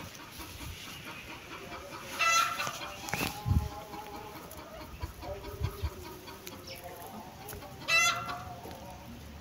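Chickens clucking, with two louder, higher calls, the first about two seconds in and the second near the end. A brief low thump a little after three seconds.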